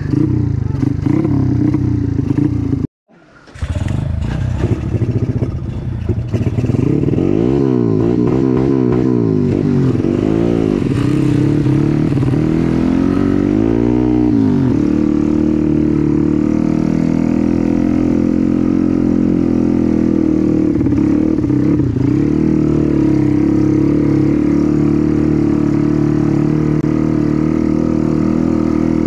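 Trail motorcycle engine running, revving up and down repeatedly for several seconds, then holding a steady pace. The sound cuts out briefly about three seconds in.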